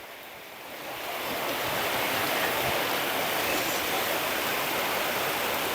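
Heavy rain pouring down in a steady downpour, swelling over the first second or so and then holding even.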